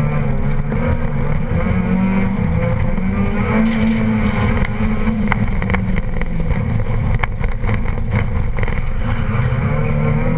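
Car engine heard from inside the cabin during a flat-out timed run, its pitch rising and falling as it revs up and eases off through the course. A run of sharp clicks and knocks comes about halfway through.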